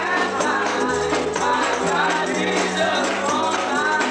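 Lively gospel worship music: a man singing the lead over a band, with a steady percussion beat and sustained low bass notes.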